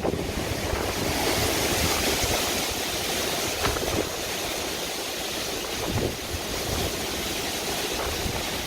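Hurricane wind blowing hard as a steady, even rushing noise.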